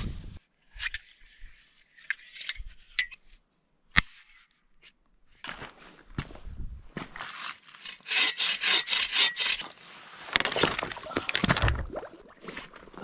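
A metal-framed bow saw cutting through a weathered driftwood log in repeated back-and-forth rasping strokes, starting about halfway in and getting louder toward the end. Before the sawing there are a few light clicks and one sharp click about four seconds in.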